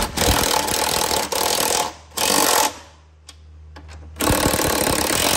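Impact gun with a 15 mm socket hammering the new strut's mounting nuts down, in three bursts: a long one at the start, a short one just past two seconds in, and another near the end. The nuts are being run down evenly to draw the strut up into place.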